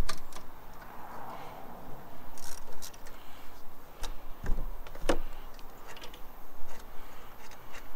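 Irregular metallic clicks and clinks from a socket ratchet and socket as a motorcycle seat bolt is loosened and then unscrewed by hand, with a sharper knock about five seconds in.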